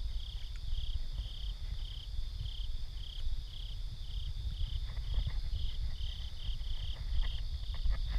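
Night insects calling: a cricket-like chirp repeating steadily about twice a second over a continuous high trill, with a low rumble underneath.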